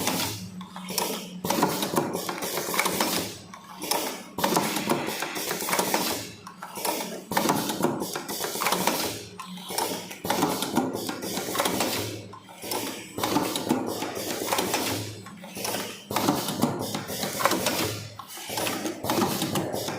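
Vertical automatic cartoning machine running, clattering and clicking as it folds and fills paper boxes, in a cycle that repeats about every three seconds over a steady low hum.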